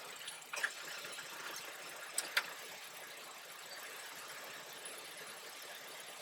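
Car engine idling faintly and steadily, with a few sharp clicks about half a second in and again about two seconds in.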